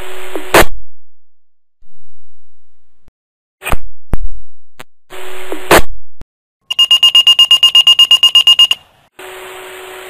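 Motorola Minitor fire pager going off. Short bursts of radio hiss and a squelch click come first. Then comes about two seconds of rapid, high-pitched alert beeping, roughly ten beeps a second, which signals an incoming dispatch. Steady open-channel hiss follows.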